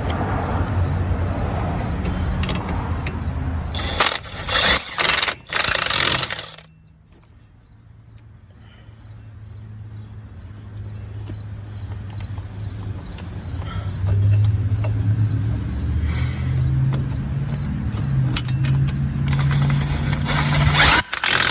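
Impact wrench driving the hub mounting bolts: the wrench hammers loudly in bursts about four to six seconds in as a bolt runs down tight, then spins slowly at part trigger with a low whir that builds until another short burst of hammering near the end.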